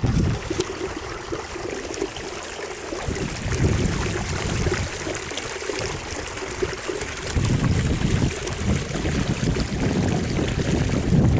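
Water rushing and splashing past a canoe moving under an electric trolling motor, with wind buffeting the microphone, heavier from about seven seconds in.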